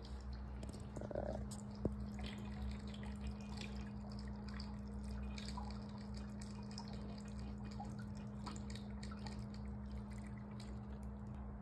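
Water poured through a funnel and hose into a diode laser hair-removal machine's water tank, trickling and dripping irregularly as the tank fills, over a steady low hum.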